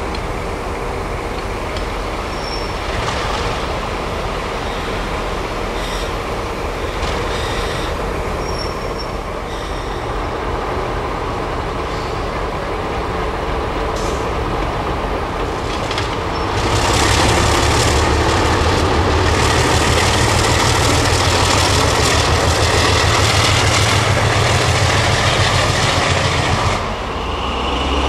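ALCO DL500C diesel locomotive and its train running past, with wheel and rail noise. About two-thirds of the way through, a much louder diesel engine sound comes in with a deep, steady rumble and drops away shortly before the end.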